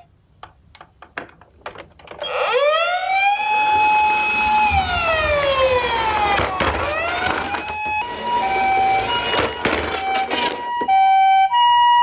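Toy ambulance's electronic siren: after a few faint clicks, a wailing siren rises, holds, falls and rises again, then changes to a Japanese-style two-tone hi-lo 'pee-po' alternation, loudest near the end.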